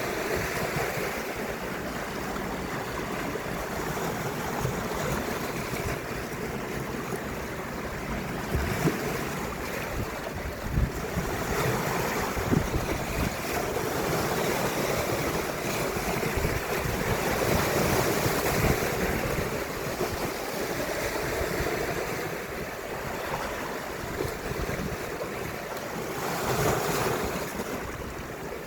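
Baltic Sea waves washing ashore, surging and easing every several seconds, with a few low thumps of wind buffeting the microphone.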